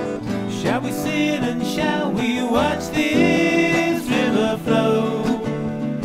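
Acoustic guitar strumming chords in a folk song's instrumental break, with a lead melody line above it whose notes slide and bend in pitch.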